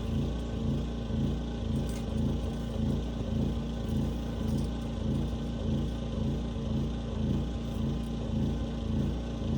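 A small engine running steadily, its level pulsing in a regular rise and fall.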